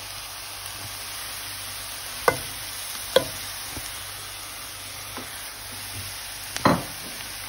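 Chicken and chopped onions sizzling gently in oil in a frying pan, a steady hiss, with two light taps near the middle and a louder knock near the end as spices go into the pan.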